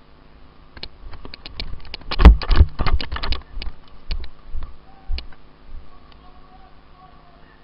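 A flurry of irregular sharp clicks and knocks, some with a low thump, densest and loudest about two to three and a half seconds in and thinning out near five seconds.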